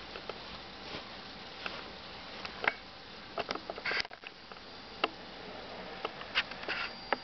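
Scattered light taps and rustles as a baby handles a disposable nappy and pats the wooden cot frame, with a brief crinkling rustle just before four seconds in.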